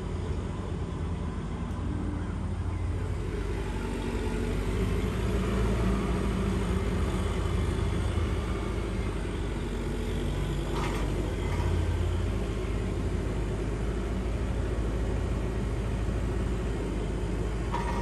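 Kubota tractor's diesel engine running steadily, with a short knock about eleven seconds in.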